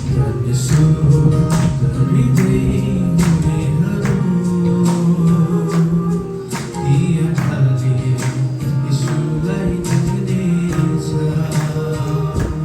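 A man singing a Christian worship song with instrumental accompaniment and a steady beat.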